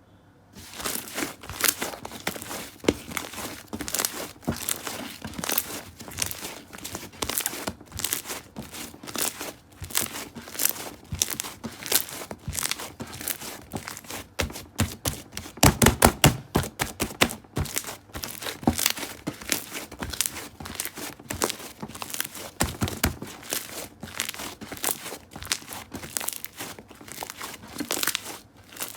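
Hands squishing and stretching clear slime, making quick, irregular sticky clicks and pops. The clicks come thickest and loudest about halfway through.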